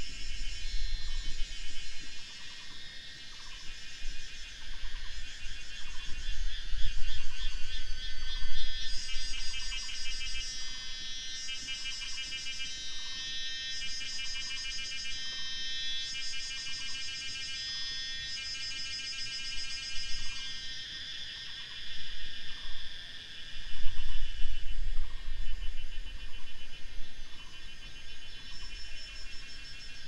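A dense chorus of insects shrilling in overlapping, pulsing layers, louder through the middle stretch. Over it a short call repeats about once a second. Low rumbling swells come and go twice.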